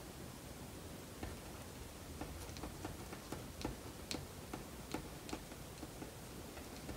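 Pen writing on paper: faint, irregularly spaced taps and short scratches as the nib strikes and lifts off the sheet, letter by letter.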